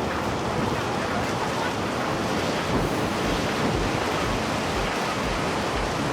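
Steady rushing of floodwater, with wind noise on the microphone.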